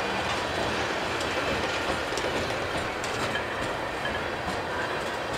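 Union Pacific freight train rolling past at about 5 mph: a steady rumble from the cars, with scattered clicks from the wheels.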